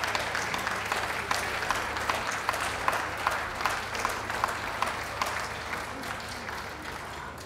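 Ringside audience applauding, with clapping that falls into a steady beat of about two to three claps a second and eases off slightly near the end.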